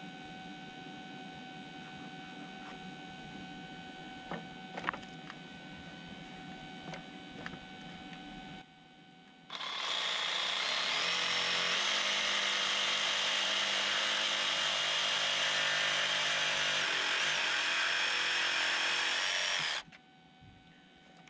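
Cordless jigsaw cutting a board: it starts about halfway through, runs steadily for about ten seconds, then cuts off near the end. Before it starts there is only a faint steady hum and a few light clicks.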